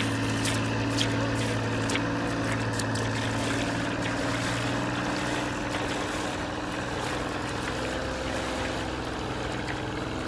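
Steady hum of a boat engine running, with sharp crunching steps on shingle and splashes in the first few seconds as someone wades into shallow water.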